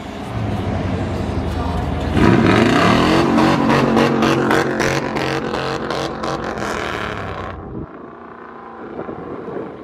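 Vehicles driving past at low speed. A low engine rumble gives way, about two seconds in, to a louder engine revving up as one accelerates past, with a rapid run of sharp crackles. The sound stops abruptly near the end, leaving a quieter hiss.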